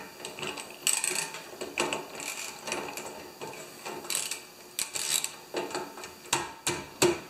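Socket ratchet working the square 3/8-inch plug on a snowblower auger gearbox: a run of short ratcheting clicks in strokes, about one or two a second, loudest near the end.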